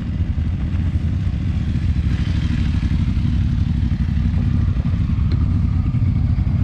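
Motorcycle engines running at low speed close by, a steady low rumble, as loaded touring bikes pull up together.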